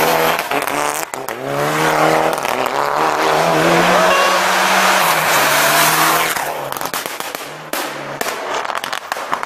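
Turbocharged four-cylinder Mitsubishi Lancer Evolution rally cars driven flat out through a bend, the engine revving up and dropping back with each gear change. In the last third comes a rapid series of sharp cracks.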